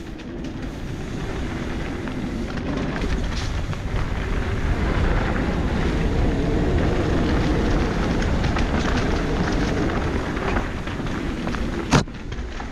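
Mountain bike riding down a dirt singletrack: a steady rumble of tyres over dirt and stones with a constant clatter of small clicks and rattles, louder in the middle. One sharp knock comes near the end.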